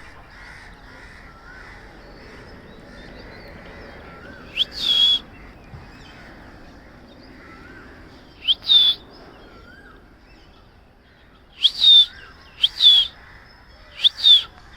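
Parrots screeching in short, shrill bouts every few seconds, over fainter chirping of other birds.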